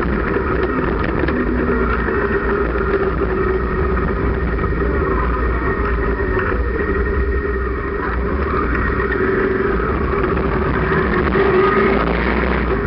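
Motorcycle-and-sidecar rig on the move: a steady engine drone under a low rush of wind on the microphone. The sound dips briefly just before the middle and builds again near the end.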